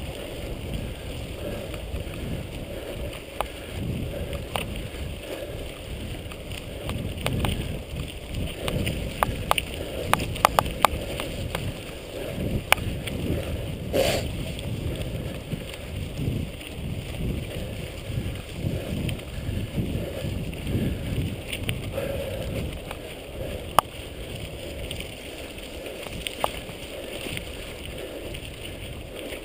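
Mountain bike riding fast down a dirt singletrack: steady rumble of tyres on the trail and wind on the microphone, with the bike rattling and clicking over bumps and one sharper knock about halfway through.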